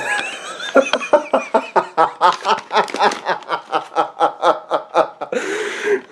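A man laughing in a long run of short, rhythmic bursts, about four a second, that stop shortly before the end.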